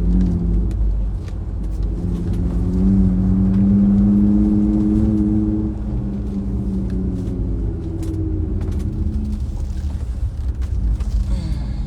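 Car interior: low road rumble and the engine's hum, the engine note rising a couple of seconds in as the car accelerates, then easing back down.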